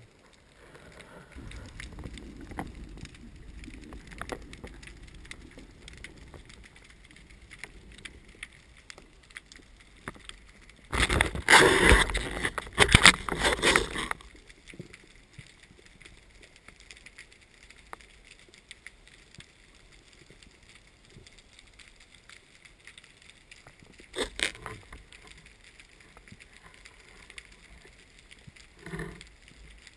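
Muffled underwater sound picked up through a camera housing while freediving: a low water rumble early on, a loud rushing, crackling burst lasting about three seconds near the middle, and two short knocks later.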